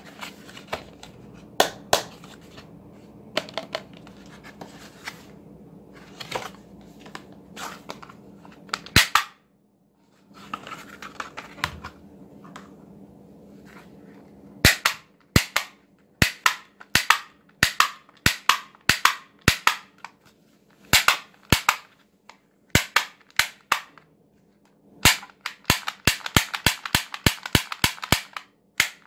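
Handling of a plastic toy holster and toy revolver, with scattered clicks and rustling over a faint steady hum. From about halfway, the gold plastic toy revolver clicks sharply again and again in quick runs as its trigger and hammer are worked, densest near the end.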